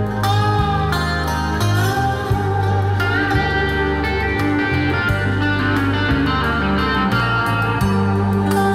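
Music with guitar over a bass line, played through a pair of Korvet 75AS-001 three-way floor speakers.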